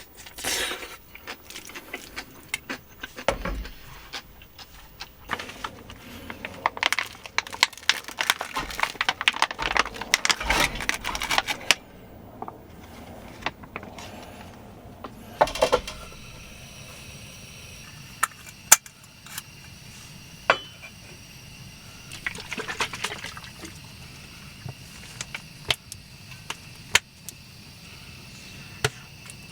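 Small clinks, taps and rustling of tableware being handled, busy for about the first twelve seconds, then only occasional single clicks.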